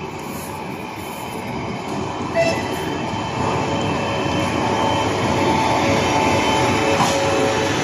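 ChS4T electric locomotive and its passenger coaches rolling past close by, the rumble of wheels on rails growing louder as the train draws level. A brief toot sounds about two and a half seconds in, and from about halfway on thin, wavering squeals come from the wheels.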